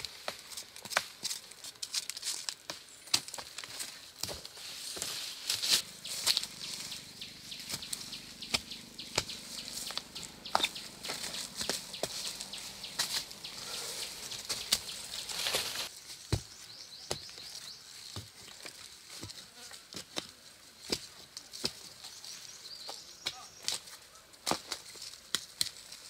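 Dry bamboo leaves and twigs rustling and crackling, with many irregular sharp snaps throughout.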